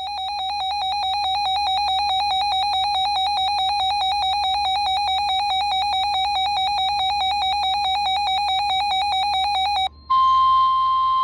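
Weather radio alert alarm: a high electronic beep pulsing rapidly for about ten seconds, then cutting to the steady NOAA Weather Radio warning alarm tone near the end, signalling a new severe thunderstorm warning. A faint low electrical hum runs underneath.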